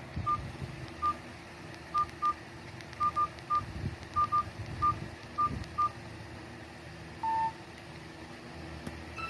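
Nokia 215 feature phone keypad beeps: about a dozen short, identical single-pitch beeps at irregular intervals as keys are pressed, then one longer, slightly lower beep about seven seconds in.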